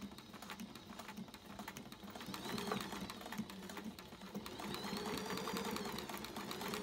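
Frister+Rossmann domestic sewing machine top-stitching a folded denim hem: rapid, even needle strokes over the motor's hum. The motor speeds up briefly about two and a half seconds in, and again for a longer run from about four and a half seconds, with a whine that rises and falls.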